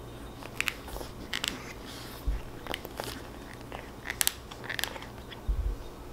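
A cat chewing and licking a fabric taiyaki-shaped catnip dental toy, its teeth working into the mesh: irregular crackly clicks and crunches, with a couple of soft low thumps.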